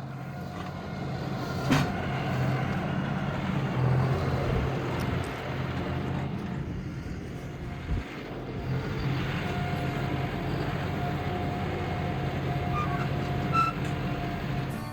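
Tractor engine running steadily under load, with a couple of short knocks.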